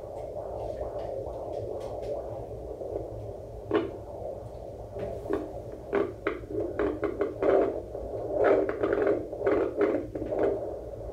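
Handheld fetal Doppler monitor on a pregnant belly, giving a steady whooshing through its speaker as the probe searches for the baby's heartbeat. From about halfway the whoosh breaks into quick pulses, two to three a second.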